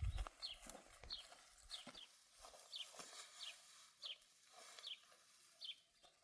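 A small bird or chick calling faintly, a steady series of short, high, falling chirps about every half second.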